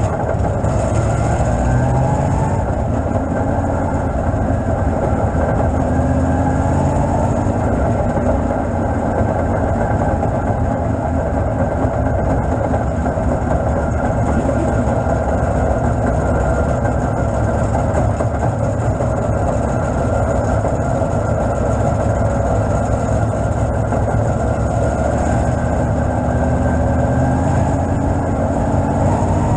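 B-Modified dirt-track race car's engine running loudly and steadily, heard from inside the cockpit as the car drives around the track.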